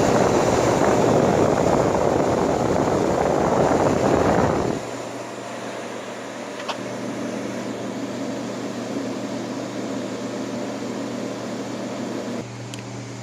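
1958 Carrier window air conditioner running on fan only, its shaded-pole blower motor driving the fan: a loud, steady rush of air. About five seconds in the rushing drops away sharply, leaving a quieter steady motor hum.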